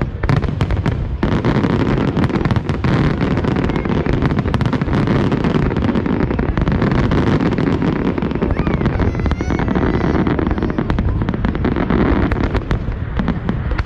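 Fireworks display at close range: a dense, unbroken barrage of bangs and crackling.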